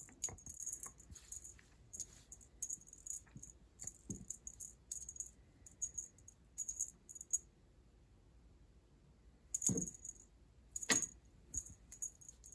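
A cat wand toy jangling and rattling in short, irregular shakes as it is waved, with two soft thumps about ten and eleven seconds in.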